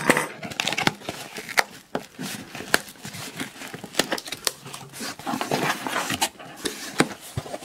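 Hands rummaging through a box of costume jewelry: irregular small clicks and clinks of pieces knocking together, with rustling and scraping between them.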